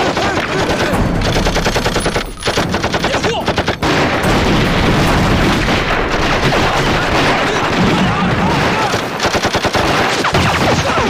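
Battle gunfire: rapid machine-gun bursts mixed with rifle shots, with men shouting over the din.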